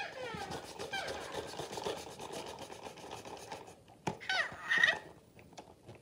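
Interactive flying toy owl making electronic baby-owl chirps while its head is rubbed: a falling squeal at the start, softer chirps, then a louder warbling call about four seconds in.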